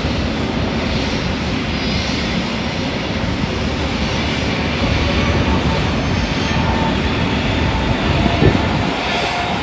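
Jet engines of a twin-engine widebody airliner at takeoff power during its climb-out, a steady loud rumbling engine noise.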